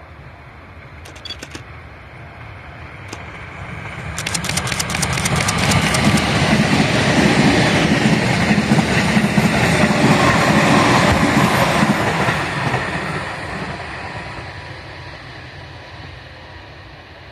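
JR 255 series limited-express electric train passing at high speed. The sound builds over a few seconds, with a quick run of sharp wheel clacks as the front arrives, stays loud for about six seconds as the cars rush by, then fades away.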